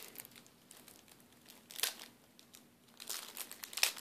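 Plastic wrapping of a sealed card pack crinkling as it is handled, in short bursts about two seconds in and again near the end.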